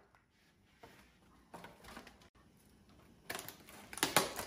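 Quiet room with a few faint clicks, then from about three seconds in a run of sharp plastic clicks and crackles as a clear plastic clamshell package of sliced meat is handled.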